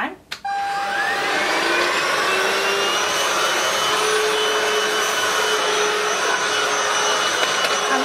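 DEIK 2-in-1 cordless stick vacuum switched on in continuous mode: the motor starts suddenly, whines up in pitch over about a second, then runs steadily with a high whine while vacuuming the floor.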